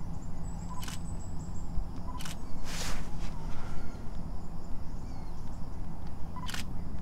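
A photo camera's shutter clicks three times, each click just after a short beep, the first two close together and the third several seconds later. A steady low rumble runs underneath.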